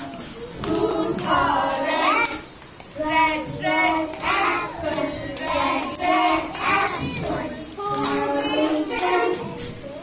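Young children singing a song together, in phrases of held notes.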